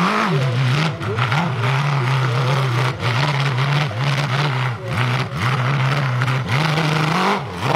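Dirt bike engine revving hard under full load, the revs rising and dropping again and again as the rear wheel spins and digs in loose dirt on a steep hill climb.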